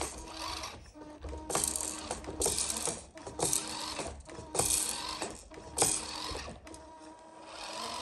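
Rhybor RC monster truck's electric motor and gears whirring in short throttle bursts, about one a second, five times, as the truck pushes under load against an obstacle on carpet.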